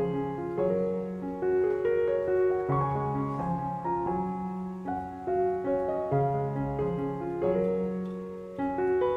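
Background piano music: a slow melody of held notes over a repeating bass line.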